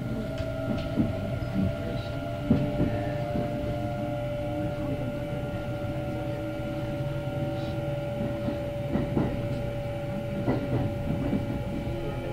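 Kintetsu 9030-series electric train heard from inside the car while running between stations: a steady rumble with a steady electric whine from the drive, and scattered clacks of the wheels over rail joints.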